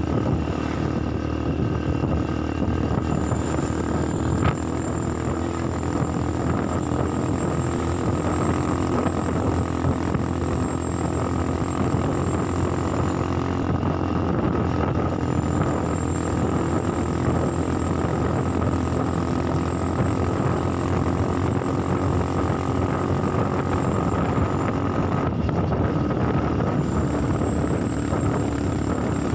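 Motorcycle riding at road speed: a steady engine drone mixed with road and wind rush, with a thin high whine that drops out now and then.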